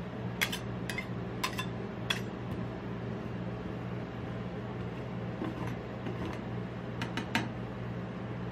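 Metal spatula scraping and tapping on the frozen steel plate of a rolled-ice-cream pan as the ice cream layer is smoothed: four sharp clicks in the first two seconds and a quick run of three near the end, over a steady low machine hum.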